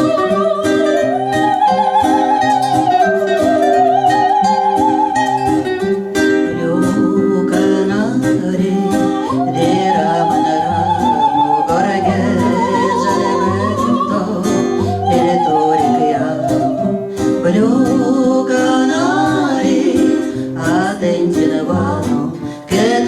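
Music: a song's introduction, a plucked guitar accompaniment with a steady beat under a melody line that wavers with vibrato.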